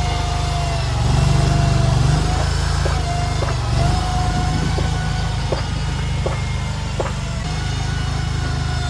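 JQ400 mini skid steer's engine running steadily, swelling under load about a second in, with a wavering whine over it. Around the middle there is a series of six sharp clicks or knocks, a little under one a second.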